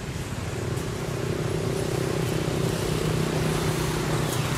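A motor vehicle's engine hum, growing louder over the first two or three seconds, then holding steady.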